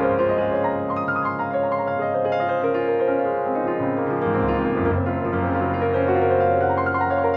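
Slow, soft piano music of held, overlapping notes, with the bass note changing about four and a half seconds in.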